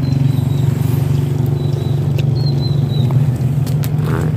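A small engine runs steadily at idle with a low, even drone, the loudest sound throughout. Over it come a few faint sharp cracks from a dog crunching sapodilla seeds to get at the kernels.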